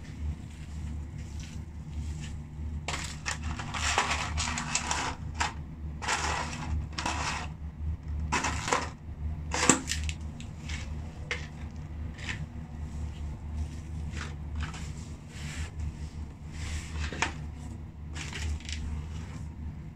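French fries being crushed and ground under the rubber soles of loafers on a tile floor: irregular squashing and scraping strokes, thickest in the first half, with one sharp knock about halfway through. A steady low hum runs underneath.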